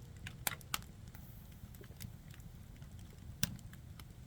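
Firewood burning and crackling, with a few scattered sharp pops; the loudest comes about three and a half seconds in.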